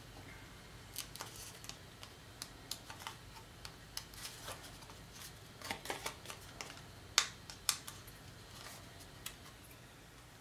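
Fingernails picking and peeling the paper backing off small adhesive foam squares on a cardstock piece: a scatter of soft ticks and scratches, with the sharpest click about seven seconds in.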